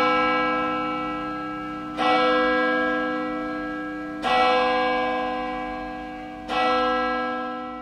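A deep, bell-like tone struck about every two and a quarter seconds, three times, each strike ringing on and dying away, closing the soundtrack music.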